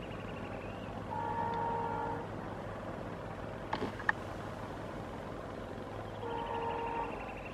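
Horn of an approaching WDM3D diesel locomotive sounding twice: a steady blast of about a second near the start and a shorter one near the end, over the low steady rumble of the train. A sharp click comes a little before halfway.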